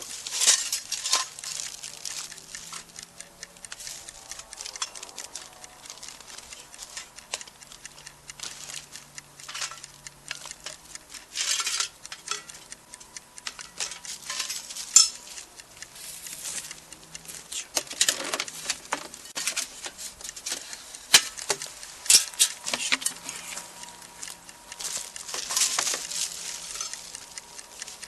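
Camp cookware and utensils being handled: irregular clinks, knocks and short scrapes, a few of them louder.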